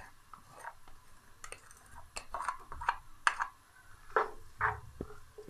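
Spatula stirring chopped onion in hot oil in a nonstick wok: irregular scrapes and light taps against the pan.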